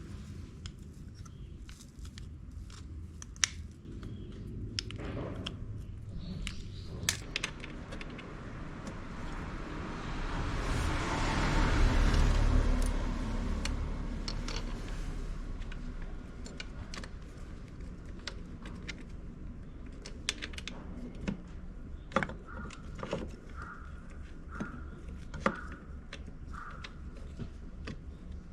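Small metal brake parts and hand tools clicking and clinking as they are handled during scooter front-brake work. A rushing noise swells and fades about halfway through.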